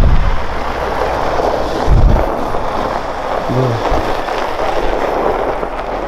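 Wind buffeting the microphone: a steady rushing noise with two heavy low gusts, one right at the start and one about two seconds in.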